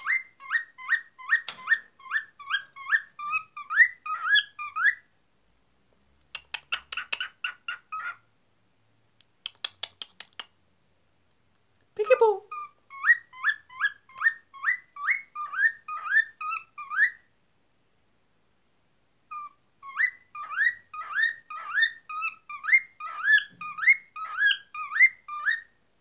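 Cockatiel whistling a song of short, rapidly repeated rising notes, in bouts of a few seconds broken by brief pauses.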